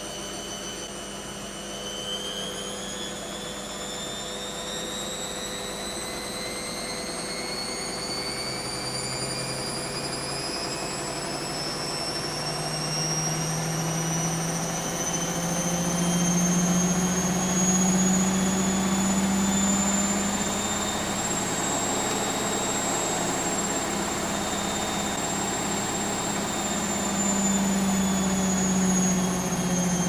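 Bush WMNSN612W washing machine's drum spinning up: the motor whine rises steadily in pitch for about twenty seconds, levels off, then drops a little near the end. A low hum underneath grows louder as the spin speeds up.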